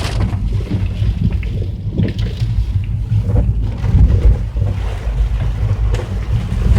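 A vehicle rumbling steadily as it drives over a rough, muddy, rocky road, with a few short knocks along the way.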